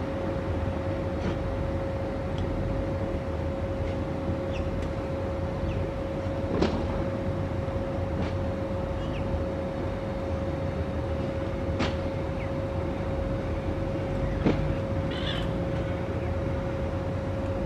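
A steady low rumble with a constant mechanical hum, with a few sharp clicks and, near the end, a short burst of cawing from a little raven.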